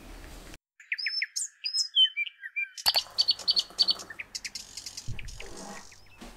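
Small birds chirping in short, quick repeated calls, joined from about three seconds in by water being poured from an electric kettle into a mug.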